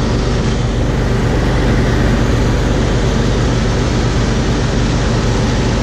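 Combine harvester running steadily in the field: a constant low engine drone under the broad noise of its harvesting machinery.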